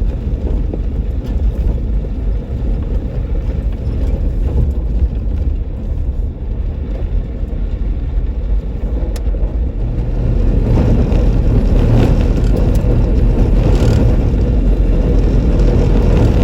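Jeep Wrangler JK driving on a dirt trail: a steady engine and tyre rumble that grows louder about ten seconds in.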